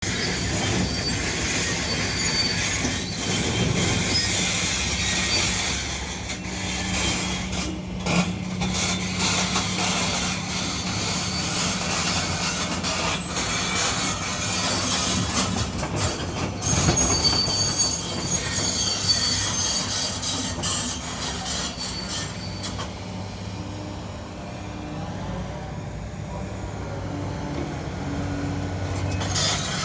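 Link-Belt 490 excavator working, its diesel engine running steadily under load, with high-pitched metallic squealing and scraping and occasional clanks. The sound eases off in the last few seconds.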